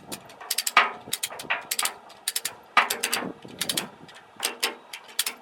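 Hand ratchet on a ratchet rake's cable being cranked to tighten the cable, the metal pawl clicking in quick bursts of a few clicks each, over and over.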